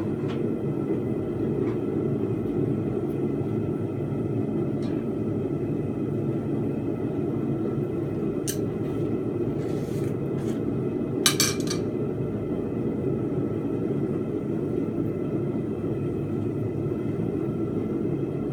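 Forge running with a steady low roar. A few light metal clinks sound over it, with a sharper double clink about eleven seconds in.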